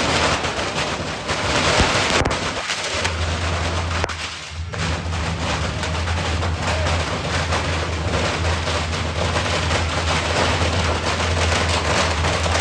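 Firecrackers bursting in a rapid, continuous crackle of sharp reports, with a steady low hum underneath from about three seconds in.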